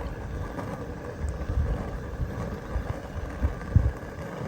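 Wind buffeting the microphone in uneven low gusts, the strongest gust near the end.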